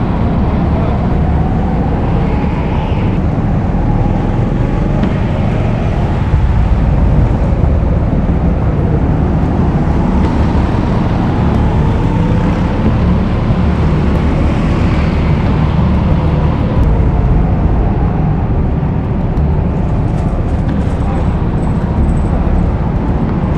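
Go-kart driven around a track, heard from a camera mounted on the kart: a steady, loud low rumble of wind and vibration, with a faint whine that slides up and down.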